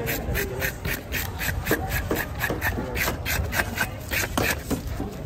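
Homemade bottle-cap fish scaler, a wooden paddle with bottle caps nailed to it, scraped rapidly along a grouper's side to rasp off the scales, in quick even strokes about four or five a second.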